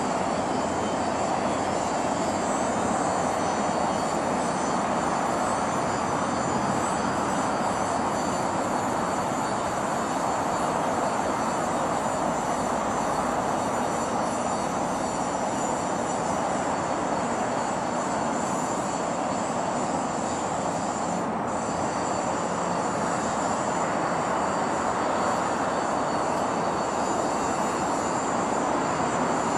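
Steady roar of distant city traffic, an even rushing hum with no single vehicle standing out.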